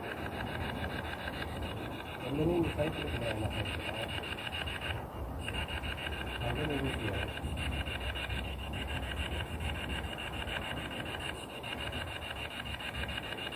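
A spirit box (a radio that sweeps rapidly through stations) scanning: a steady, rasping stream of choppy static. A few brief voice-like fragments come through, about two seconds in and again near the middle.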